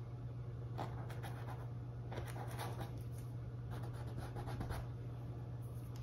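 Small paintbrush dabbing and stroking acrylic paint onto a canvas: three short spells of soft, scratchy brush strokes, about one, two and a half and four seconds in, over a steady low hum.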